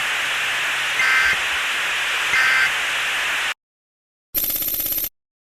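Emergency Alert System end-of-message data tones: three short two-tone warbling bursts about a second apart over a steady bed of radio static. The static cuts off suddenly, and a moment later comes a brief buzzy burst of under a second.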